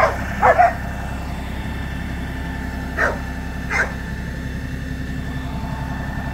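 New Holland Workmaster 40 tractor's three-cylinder diesel engine running steadily as it drives off. A dog barks twice at the start and twice more about three seconds in.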